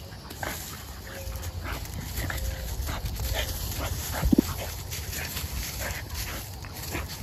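Two young pit bull-type dogs play-fighting, with scattered short growls and whines; the loudest, a low growl, comes about four seconds in.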